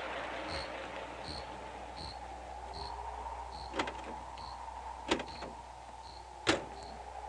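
Night ambience of crickets chirping in an even rhythm, a little more than once a second, over a steady hum. Three sharp knocks come about a second and a half apart, the last one loudest.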